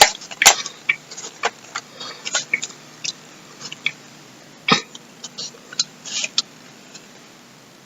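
Handling noise from an old camcorder being turned over and shown: scattered light clicks and taps, with sharper knocks about half a second in and near the middle.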